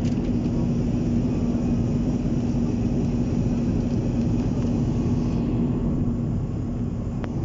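Jet airliner cabin noise in flight: a steady low rumble of turbofan engines and airflow, with a constant hum running through it.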